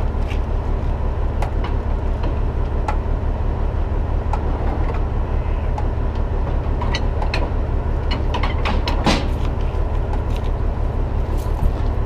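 Heavy truck's diesel engine idling steadily, with a few sharp clanks over it.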